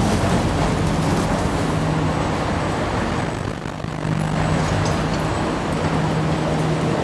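Steady low machine drone of an underground MRT station platform with a train standing at it, as passengers step off. It dips briefly a little past the middle.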